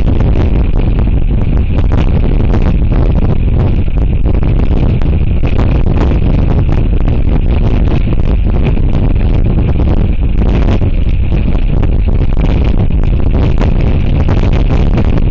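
Strong gusting wind buffeting the microphone: a loud, steady rumble of wind noise.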